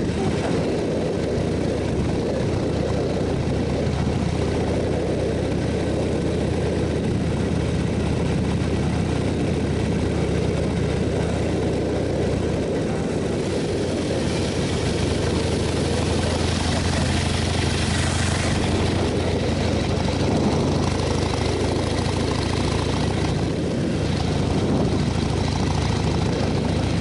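Motorcycle engine running steadily while riding, under a constant rush of wind noise. The hiss grows louder for several seconds about halfway through.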